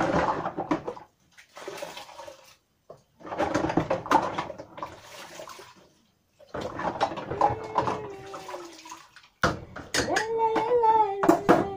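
Dishes being washed by hand in a plastic basin of water: splashing and sloshing in bursts with short pauses, and sharp knocks of plastic cups and utensils.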